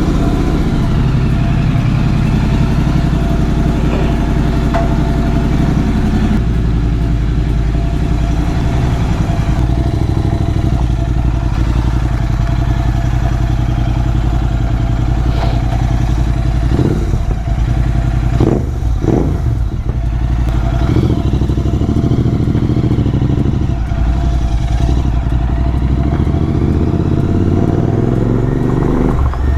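Royal Enfield GT650's 648 cc parallel-twin engine running steadily while the bike is ridden, with a few short knocks a little over halfway through.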